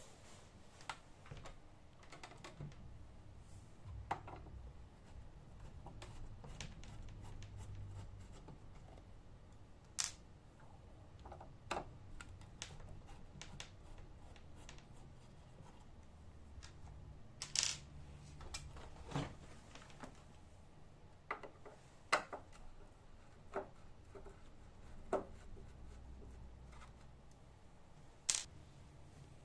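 Scattered sharp clicks and light knocks, about fifteen spread irregularly, of tools and hard plastic parts being handled during a speaker system repair, over a faint low hum.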